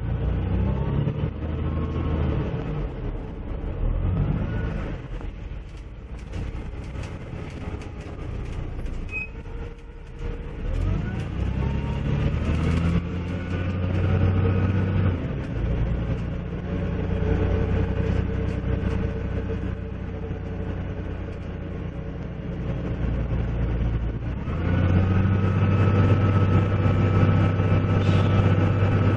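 Dennis Dragon double-decker bus's engine and drivetrain heard from a seat inside, pulling away with rising whines as it picks up speed, easing off to a quieter run for a few seconds, then running louder and steady under load for the last few seconds.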